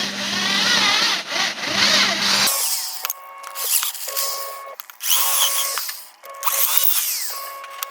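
An electric power tool running steadily at first, then switched on and off in about five short bursts from roughly two and a half seconds in, each burst with a high whine.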